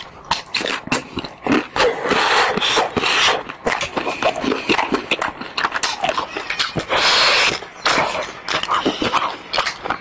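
Close-miked eating of a chocolate-coated ice cream bar: the hard coating crunches as many sharp crackling clicks, with wet mouth noises between. Two longer hissing stretches come about two and seven seconds in.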